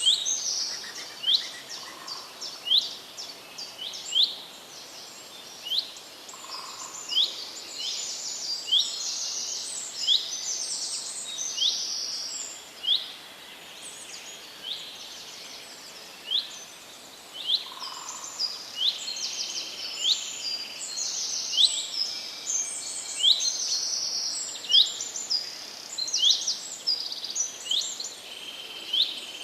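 Several wild birds calling and singing together: a dense, overlapping run of short, high chirps, many of them quick sweeping notes, over a faint steady outdoor hiss.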